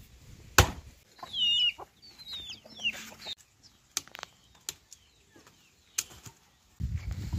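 Chickens clucking, with one heavy thud just before them and a few sharp knocks afterwards.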